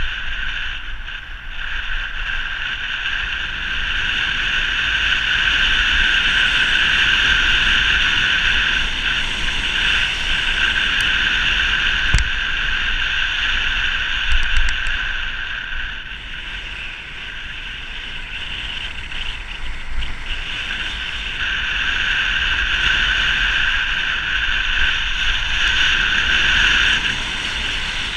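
Wind rushing over an action camera's microphone on a fast bicycle descent, swelling and easing with speed. A few brief knocks come in about midway, from the bike going over bumps.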